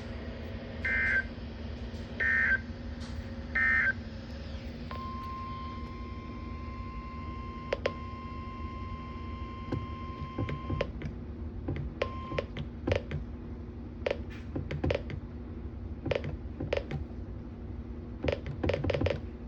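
NOAA Weather Radio end-of-message signal: three short bursts of SAME digital data tones about a second and a half apart, closing the severe thunderstorm warning. A steady tone of about six seconds and a brief second one follow, then scattered clicks over a low hum.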